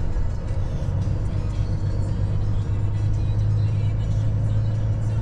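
Semi-truck's diesel engine running, heard from inside the cab as a steady low drone that rises slightly in pitch about three seconds in, with music faintly in the background.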